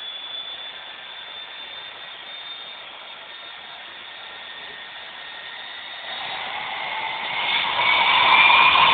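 Twin-engine turboprop aircraft's engines running with a steady high turbine whine. Over the last three seconds the sound grows louder and its pitch rises as the aircraft comes closer.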